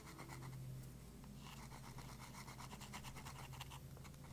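Faint, irregular scratching of paint-marker tips rubbing into the recessed size lettering on metal impact sockets, over a steady low hum.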